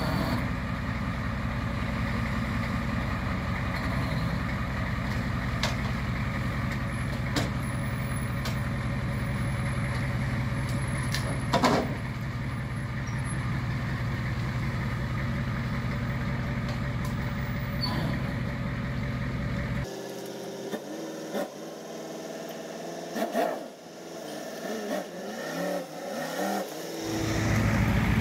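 A truck engine idles steadily. About two thirds in, the hum drops away, and a Ford pickup's engine is heard with rising and falling pitch, growing louder as the truck comes close near the end.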